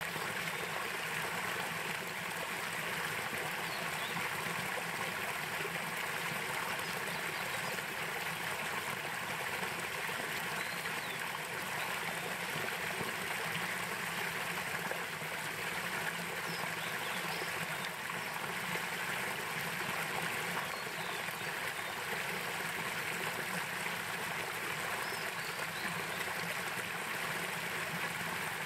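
Small headwater stream splashing down a low cascade over mossy rocks: a steady, even rush of water.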